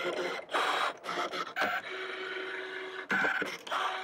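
Brother ScanNCut DX SDX225 cutting machine cutting vinyl: its motors whir in short stop-start runs as the blade carriage moves, with one longer steady run midway.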